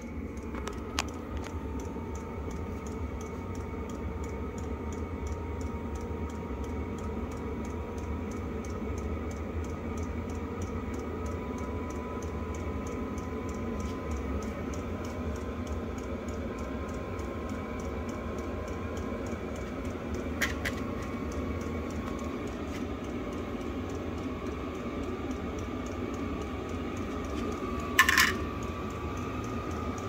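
Beaver 5 kW Chinese diesel air heater running: a steady blower hum with a thin whine that slowly rises in pitch as the fan speeds up, over a regular faint ticking of the fuel pump. Three sharp clicks break in, about a second in, about twenty seconds in and, loudest, near the end.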